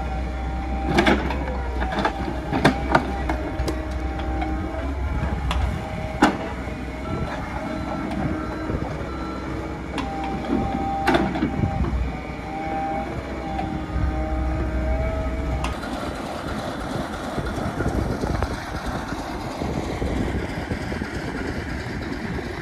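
Diesel engine running with a steady low hum, punctuated now and then by sharp metallic clanks. About two-thirds of the way through the hum stops and the rumble and rattle of rail wagons takes over.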